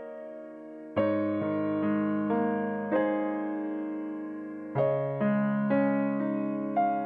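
Slow background music on a piano-toned keyboard. A chord is struck about a second in and then single notes follow, each left to ring and fade. A second chord comes near the five-second mark, again followed by single ringing notes.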